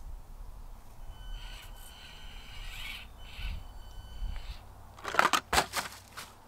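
Axial SCX24 micro RC crawler's small electric motor and gears whining in two spurts as it drives up onto a rock, then several loud hard clatters in about a second near the end as the truck drops and tumbles off the rock.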